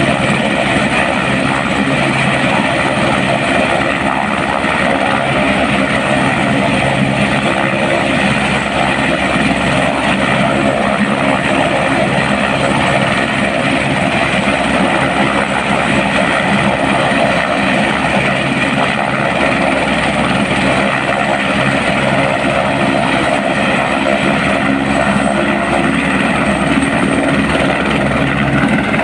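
Airbus H125 helicopter's single turboshaft engine and main rotor running steadily at close range, with a faint high turbine whine rising near the end.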